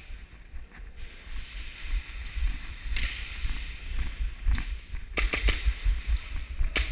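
Low rumbling handling noise from a body-worn Contour action camera as the player moves, over a steady hiss. About five seconds in comes a quick run of sharp clicks, and a few more near the end.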